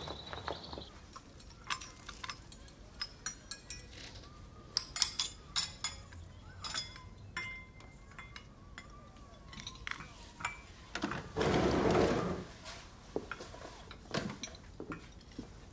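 Dishes, glass and cutlery clinking as they are handled: a scatter of light, sharp clinks with brief ringing, and a short rush of noise about eleven seconds in.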